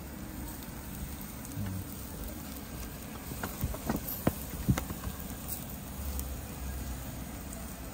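Bamboo skewers and a basting brush knocking against the wire rack of a charcoal grill: a few light clicks between about three and a half and five seconds in, over a steady low background hiss.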